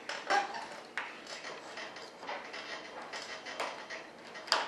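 Small hand tool scratching and tapping along the edge of a wing-tip mold: a string of light, irregular clicks and scrapes, with one sharper click near the end.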